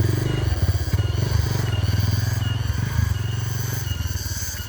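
Motorcycle engine running under way on a rough track, with the throttle easing and opening again a few times. Short high chirps repeat steadily in the background.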